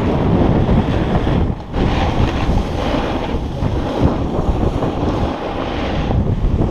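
Wind rushing over the microphone of a board-mounted action camera, with the snowboard's base and edges scraping over packed snow; the noise drops briefly about one and a half seconds in.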